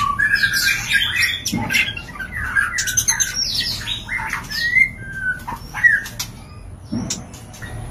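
White-rumped shama (murai batu) giving its breeding-season mating call: a fast run of short whistled notes sliding up and down, mixed with harsh squawky notes and sharp clicks. The calls thin out near the end, and there are two soft thumps, one early on and one near the end.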